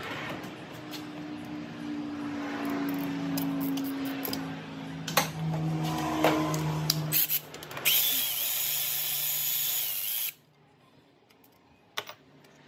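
A power tool running in stretches, its pitch shifting as it works an alternator mounting bolt loose, with a few knocks. Near the end comes a louder, higher, hissier stretch that cuts off suddenly, followed by a few light metallic clicks.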